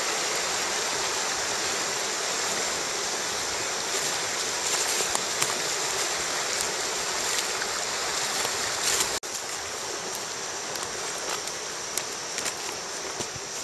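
Mountain stream rushing over rocks, running high after heavy rain, a steady wash of water noise that drops suddenly in level about nine seconds in. Faint crackles of footsteps through cut undergrowth are heard over it.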